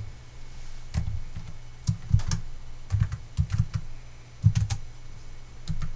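Typing on a computer keyboard: irregular keystrokes, some in quick clusters of two or three.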